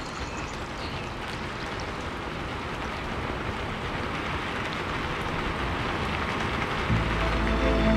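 A steady rushing noise that grows slowly louder. About seven seconds in, music enters with a low drone and held notes.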